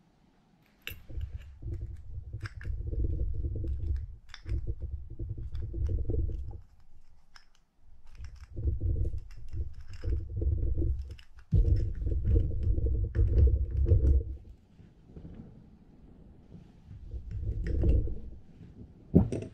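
Small metal clicks and scraping as a little pick tool works a ball bearing out of a Penn International II 50T reel side plate, over low rumbling handling noise in stretches of a second or two.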